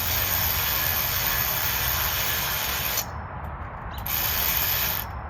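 Power drill-driver running bolts in two runs, about three seconds and then about one second, snugging them on but not tightening them all the way.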